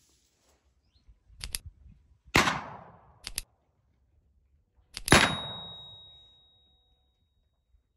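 Two shotgun shots about three seconds apart, each dying away in a long echo, the second the louder. Each is preceded by a short, sharp double click.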